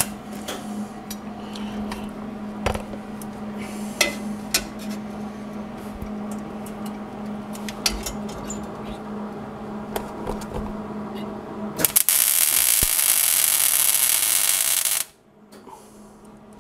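MIG welder arc hissing and crackling steadily for about three seconds near the end, tack-welding a steel plate to the frame. Before it, a steady hum with scattered clicks and metal taps as the plate is held in place.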